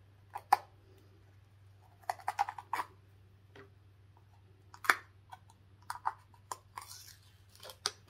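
Fingernails picking and scratching at the protective cover on a small jar of sugar body scrub: irregular small clicks and scratches, a cluster about two seconds in and more through the second half.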